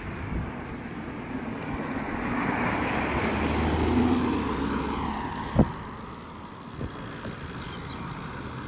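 Slopestyle mountain bike riding: a rushing noise of tyres and wind on the microphone that builds to a peak about four seconds in, then a sharp knock about five and a half seconds in and a lighter one a second later.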